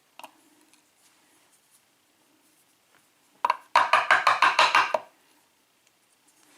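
A single click, then about three seconds in a quick run of sharp knocks, about ten a second for a second and a half. It is the hard rattle of a euro cylinder lock being tapped to shake its pins out as it is taken apart.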